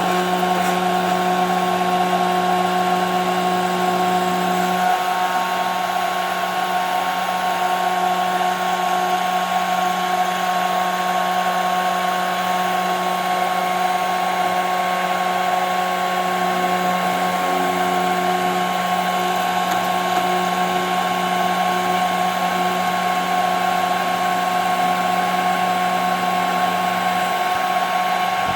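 CNC router spindle running with a steady high whine over a low hum, machining 5 mm plexiglass. The low hum shifts slightly in pitch a couple of times.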